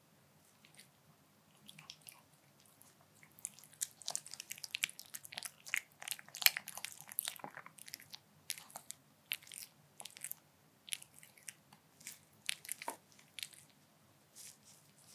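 White Pomeranian eating soft noodles in black bean sauce: a quick run of wet chewing and lip-smacking clicks that starts a few seconds in, is thickest in the middle, and thins out near the end.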